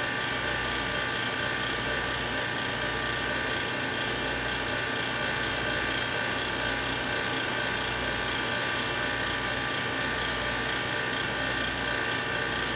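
Steady electrical hum and whine from the plasma-chamber rig, running without change while a high-voltage glow discharge lights the low-pressure krypton and argon in the glass bottle.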